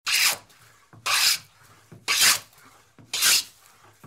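Hand plane taking shavings off a board: four even strokes about a second apart, each a short hiss of the blade cutting, with a light tap just before each stroke.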